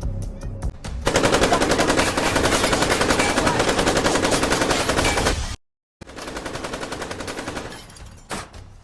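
Machine-gun fire in long, rapid automatic bursts. The fire cuts off abruptly for about half a second, resumes, and then fades away. Music plays low underneath.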